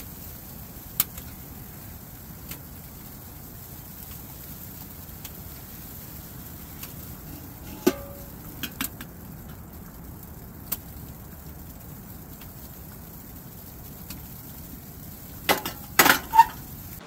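Steady low background noise with a few light clicks as coffee is poured from a stainless steel percolator into a mug, then near the end several sharp metal clanks with a brief ring as the percolator is set back down on the camp stove.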